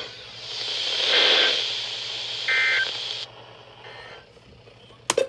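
Radio static hiss with short, harsh two-tone data buzzes, one clear and others fainter, about a second or so apart: the EAS (SAME) end-of-message code closing a severe thunderstorm warning. The static cuts off suddenly about three seconds in, and a couple of clicks follow near the end.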